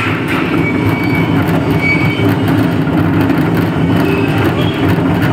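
Chura (flattened rice) machine running with a loud, steady mechanical rumble while hot roasted paddy is fed into it by hand to be beaten into flakes.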